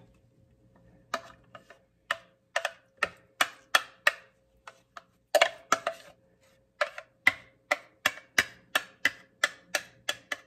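A kitchen utensil knocks and scrapes against the rims of the containers as thick fruit jam is scooped from a blender cup into a jar. It makes quick, sharp clicks, about two to three a second, starting about a second in.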